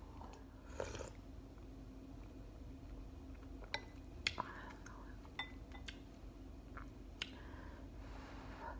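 Metal fork clinking against a ceramic noodle bowl in several sharp clicks, between soft mouth sounds of eating ramen noodles. A low steady hum runs underneath.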